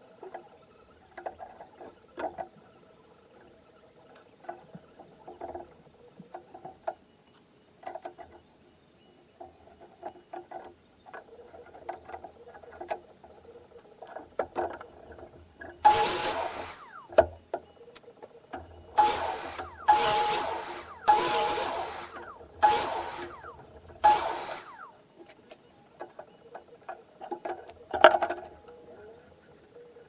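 Light clicks and knocks of wood and tools being handled on a workbench, then, about halfway through, a power saw cutting wood in six short bursts of about a second each, followed by a single sharp knock near the end.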